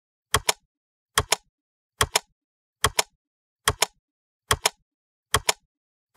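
Typewriter key-strike sound effect: sharp double clicks, about seven evenly spaced a little under a second apart.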